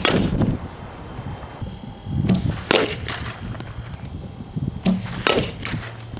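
A fastpitch softball bat hitting pitched balls: three sharp hits with a short ring, about two and a half seconds apart. Before each of the last two hits, a pitching machine fires the ball with a duller thud.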